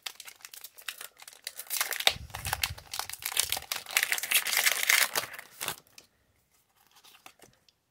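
Foil Pokémon TCG Scarlet & Violet booster pack crinkling and tearing as it is ripped open by hand, a dense crackle for about six seconds that then falls to a few faint rustles.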